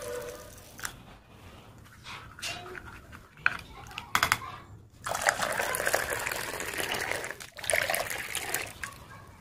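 A spoon clinks a few times against a ceramic mug while stirring melted chocolate into milk, about three to four seconds in. From about five seconds in, liquid pours steadily into the mug, with a short break shortly before the end.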